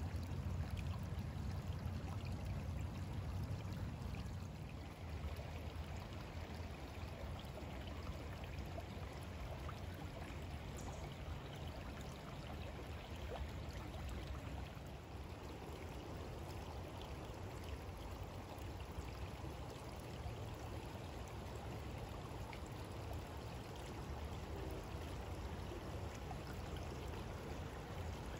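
Small forest creek flowing steadily, an even rush of water over a low rumble.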